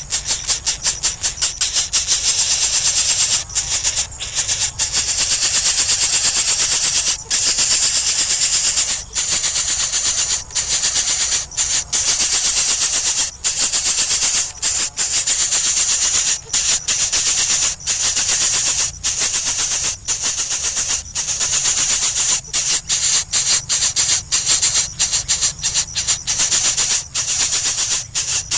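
Loud, rapidly pulsing high-pitched insect buzz with short breaks every second or two.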